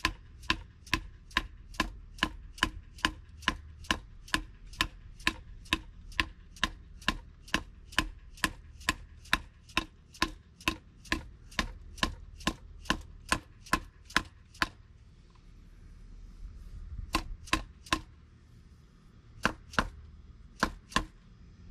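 Hammer tapping a new wheel seal into a truck's front wheel hub: a steady run of light, sharp taps, about two and a half a second, worked around the seal's edge to seat it evenly. After a short pause a little past the middle comes a handful of scattered taps as the seal seats flush with the hub.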